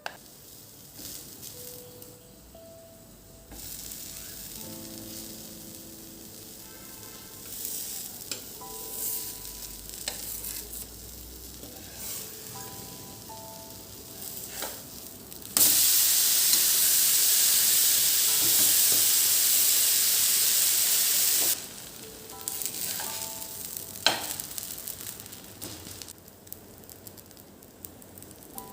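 Food frying in hot oil in a pan: a loud sizzle starts suddenly in the middle and cuts off abruptly about six seconds later. Around it are quieter kitchen handling noises, a sharp click a few seconds after the sizzle, and soft background music.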